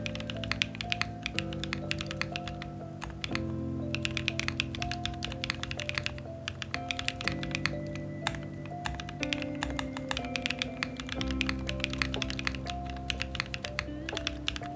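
Typing on a Katze 60 mechanical keyboard with stock, factory-lubed IconLabs First Love linear switches (made by BSUN) in an FR4 plate. The keystrokes are clacky and come in quick runs with short pauses, over background music.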